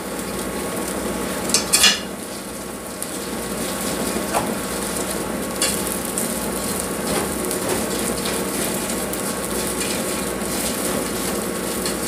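A metal fork stirring and scraping rice and peas in a saucepan, over a steady sizzle of the rice cooking down in coconut milk. There are a few sharp clinks of the fork against the pot, the loudest a little under two seconds in.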